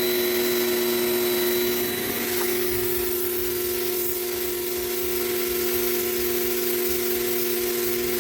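Small Vonder electric pressure washer running steadily, its motor and pump giving a steady hum with a hiss over it.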